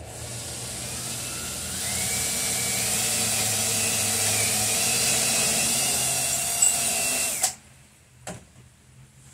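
Cordless drill running under load for about seven and a half seconds, its motor pitch rising about two seconds in, then stopping suddenly. Two short clicks follow near the end.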